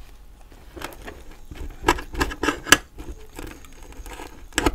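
Knife and fork cutting into a cheesesteak sub roll, giving a series of irregular clicks, taps and crackles, with a cluster of sharper clicks a couple of seconds in and another near the end.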